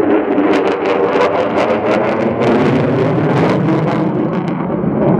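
F-35A's F135 afterburning jet engine passing overhead in afterburner: loud, steady jet noise with a rapid crackle running through most of it.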